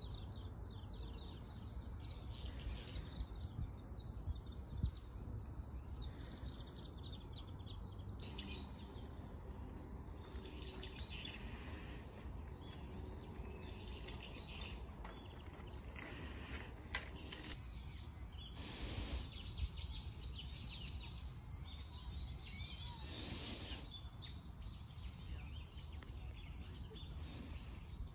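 Birds chirping and calling repeatedly in short high notes, busier in the second half, over a steady low background rumble.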